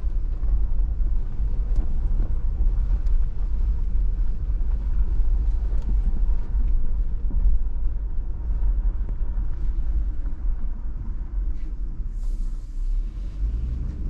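Off-road vehicle driving along a dirt mountain trail: a steady low rumble of engine and tyres, with scattered small clicks and rattles.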